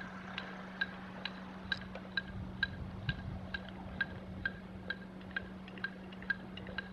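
Marching-band electronic metronome clicking a steady tempo, a little over two sharp, pitched clicks a second, with a steady low hum underneath.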